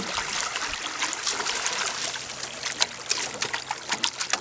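River water splashing and trickling against the side of a boat as a landing net is swished through it and lifted out, with a run of small drips and splashes near the end.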